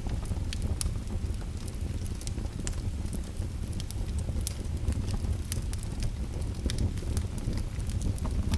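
Wood fire crackling: a steady low rumble with scattered, irregular sharp pops and snaps.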